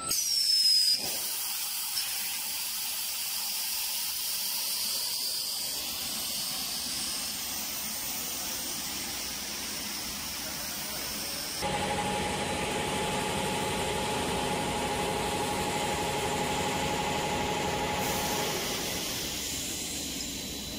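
Machinery of a meat-stick extrusion and conveyor line running, opening with a short falling whine, then a steady hiss. About halfway through, a louder motor hum with a steady whine comes in and eases off near the end.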